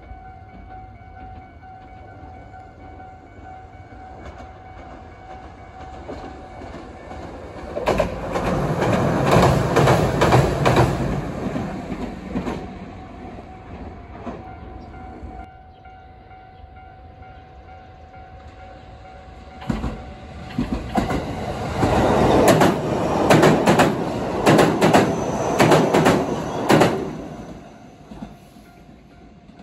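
Two trains going by one after the other, each rising and fading over several seconds, their wheels clattering over rail joints.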